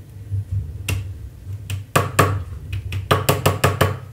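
Sharp metallic clicks from a flat screwdriver working against the ends of stripped copper wire: a few single clicks, then a quick run of about eight near the end. A steady low hum runs underneath.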